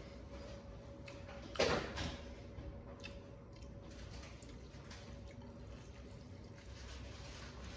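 Soft, wet squishing and faint clicks as a hand presses and mixes a bowl of noodles, with one sudden short loud noise about a second and a half in.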